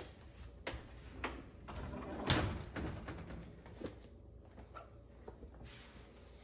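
Kitchen handling noises: an oven door being lowered open and a wooden cabinet drawer pulled out while oven mitts are taken from it. A few scattered knocks and clunks, the loudest about two seconds in.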